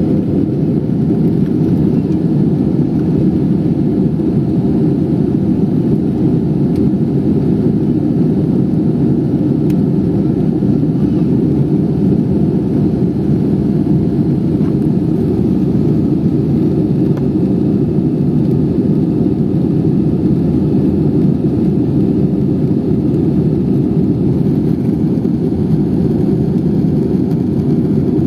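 Steady low rumble of an Airbus A320-214's two CFM56-5B engines and airflow, heard from inside the passenger cabin.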